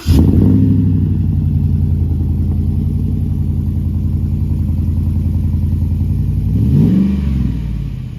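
Car engine idling steadily, then revved once near the end, its pitch rising and falling back.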